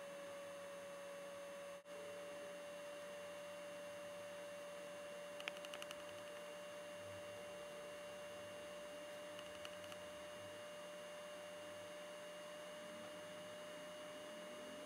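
Faint steady electrical whine and hiss, a constant tone with no other sound to speak of, dropping out for a moment about two seconds in. A few faint ticks come about five seconds in and again near ten seconds.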